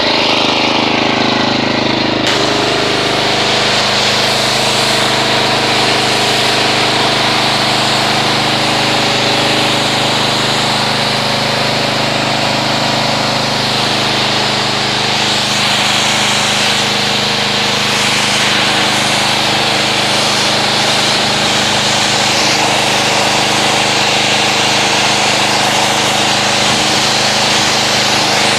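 Pressure washer running steadily, its motor and pump humming under the loud hiss of the water jet as it rinses soap foam off a car's paint.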